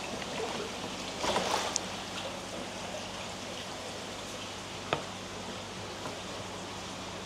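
Steady running water with a low steady hum under it, a louder rush of water about a second in and a single sharp knock about five seconds in.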